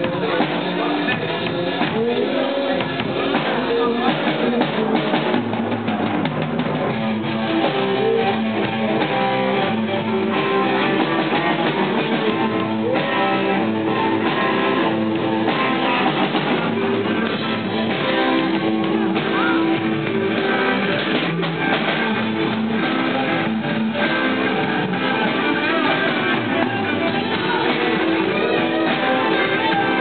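Small rock band playing a warm-up jam: two electric guitars through small combo amplifiers with a drum kit, loud and steady throughout.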